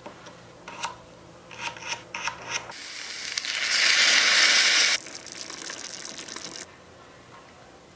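A few light clicks and scrapes as a tiny carrot is worked on a small wooden cutting board. Then a loud sizzling hiss swells in a tiny saucepan as sauce is poured onto browned chicken, and it cuts off abruptly about five seconds in. A softer crackling sizzle follows and stops near six and a half seconds.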